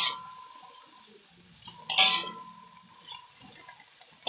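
Metal spatula scraping and clinking against a steel wok while stir-frying greens: two short strokes, one at the start and one about two seconds in.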